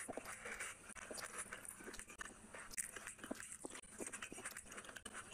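Close-up chewing and wet mouth smacks of a person eating rice and curry by hand, with soft squishing of rice mixed with the fingers; irregular clicks and smacks throughout.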